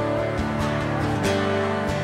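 Instrumental background music with held, sustained chords.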